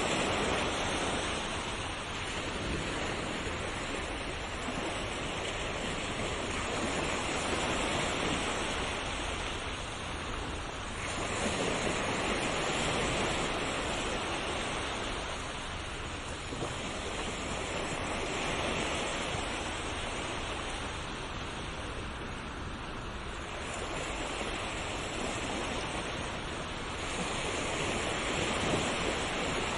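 Sea waves breaking and washing on a shore, a continuous surf that swells and eases every few seconds.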